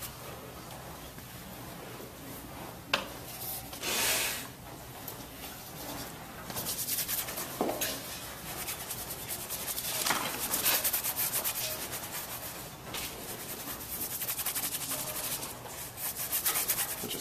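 Paintbrush scrubbing oil paint onto canvas in a series of rasping strokes, sparse at first and nearly continuous from about six seconds in. A single sharp click about three seconds in.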